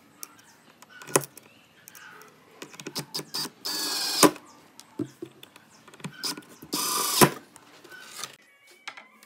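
Hitachi-branded cordless driver running screws through a small steel hinge into a pine board: two short whirring runs of about half a second each, rising in pitch and each ending in a sharp knock. Lighter clicks of screws being handled come in between.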